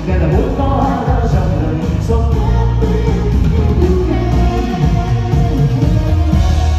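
A pop song being rehearsed: full band music with a strong bass line and singing.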